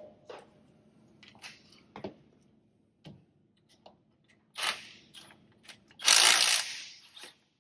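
Hand tools clicking and knocking at a truck's front wheel hub, with two short rasping bursts, the longer near the end.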